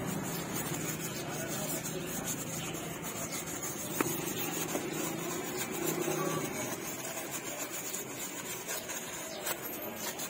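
Stiff bristle brush scrubbing soapy metal engine parts on a motorcycle, a steady scratchy rubbing. A single sharp click about four seconds in.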